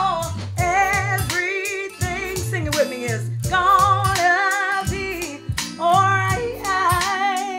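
Music: a woman singing with heavy vibrato over a backing track with a bass line and drum beat.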